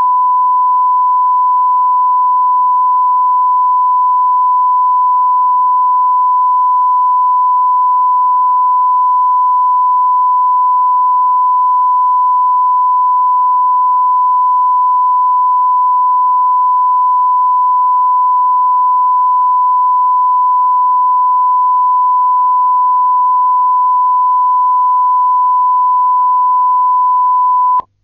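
A steady 1 kHz line-up tone, the reference tone recorded at the head of a broadcast tape, held at one loud, unchanging pitch and cutting off abruptly just before the end.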